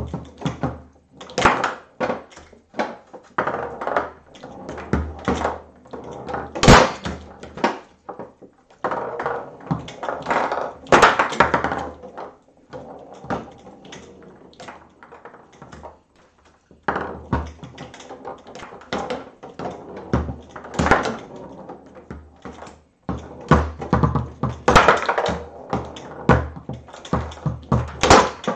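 Foosball table in play: the hard ball knocked between the figures and off the walls, and the rods clacking, in a quick irregular run of knocks with a few short pauses. One sharp crack stands out about seven seconds in.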